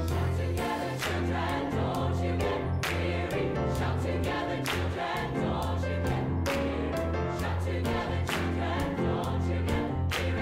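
A large mixed gospel choir singing a lively spiritual arrangement, with hand claps cutting through the singing.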